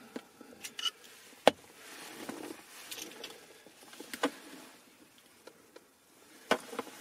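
Sharp plastic clicks and small knocks as a stiff wiring connector is worked off the back of a BMW E36 hazard warning switch with a screwdriver and fingers. The loudest click comes about a second and a half in, with two more near the middle and near the end.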